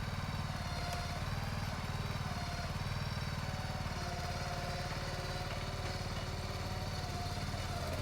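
Engine of the delivery machine running steadily, with a faint higher whine coming and going above it.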